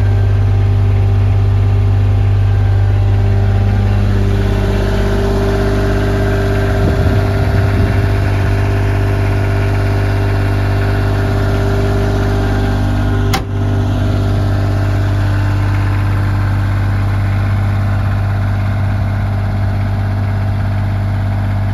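Bobcat L28 articulated loader's engine idling steadily, with one sharp click a little past the middle.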